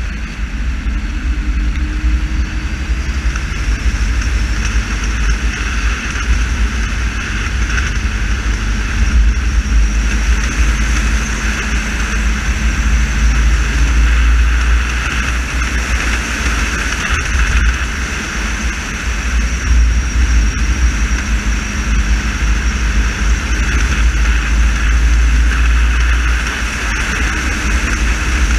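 Car driving along a road, heard from inside the cabin: a steady low rumble of engine and tyre noise that swells and eases a little with speed.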